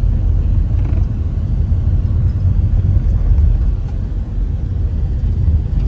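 Steady low rumble of a moving vehicle, heard from inside as it drives along.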